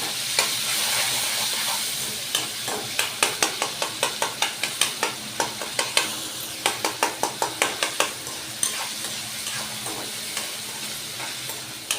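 Chopped tomatoes sizzling as they sauté in hot oil in a pan, stirred with a spoon. From a couple of seconds in, the spoon knocks against the pan about three to four times a second for several seconds, then the stirring stops and the sizzle carries on more softly.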